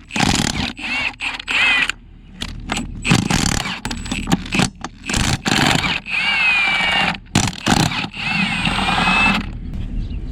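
Impact wrench unbolting wheel lug nuts, running in repeated bursts. Its whine dips and rises in pitch during the longer bursts.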